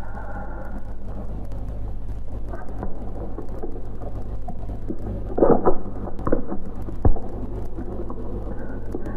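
Steady low rumble and hiss of an old optical film soundtrack. A cluster of short, louder noises comes about five and a half seconds in, and a single sharp knock about seven seconds in.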